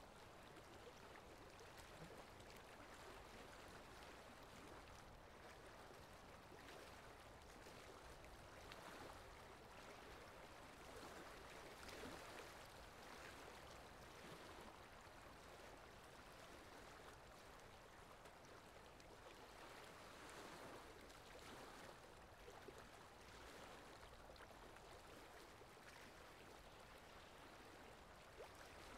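Faint, steady wet sloshing and squelching of mud and water, with soft scattered splashes.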